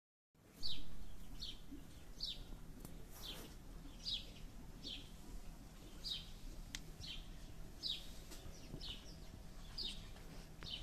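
A bird chirping over and over: short, high, falling notes, roughly one every three-quarters of a second.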